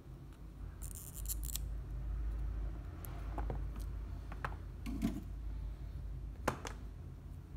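Small clicks and taps from handling an LED spotlight driver board and a replacement electrolytic capacitor, with a brief hiss about a second in and a sharp click near the end, over a low steady hum.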